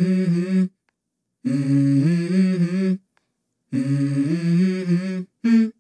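A short hummed vocal melody of a few held notes stepping in pitch. It repeats in phrases of about a second and a half, with dead-silent breaks between them.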